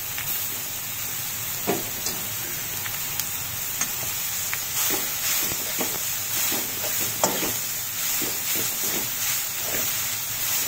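Shredded cabbage sizzling in hot tempered oil in a metal kadhai, with a steel spoon scraping and clicking against the pan as it is stirred; the scrapes come more often in the second half.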